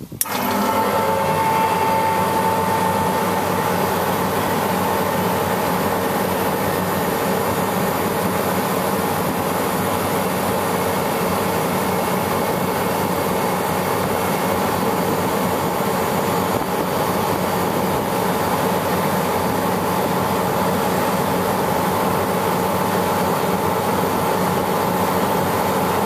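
5-horsepower Copeland hermetic refrigeration compressor kicking on abruptly, forced to run by levering the low-pressure switch closed, and then running steadily with a constant hum during pump-down against a shut valve. It cannot pull the suction down, which the owner takes for bad suction valves.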